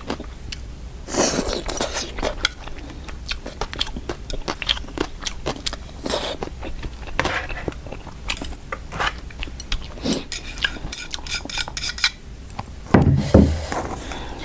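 Close-up eating sounds: utensils clicking and scraping against a bowl of dry instant noodles, with chewing in between. Many quick clicks cluster about two-thirds of the way through.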